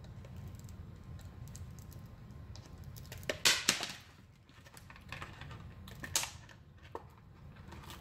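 Light clicks and scrapes of thin hard plastic as a crystal is pried and peeled out of a clear plastic mold with a screwdriver tip and fingers. There is a louder cluster of clicks about three and a half seconds in and single sharp clicks near six and seven seconds, over a low steady hum.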